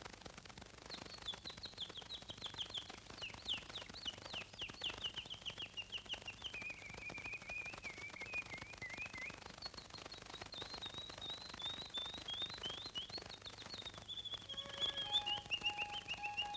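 Birdsong: two long phrases of rapid chirps, each starting high and stepping down in pitch. A few sustained musical notes come in near the end.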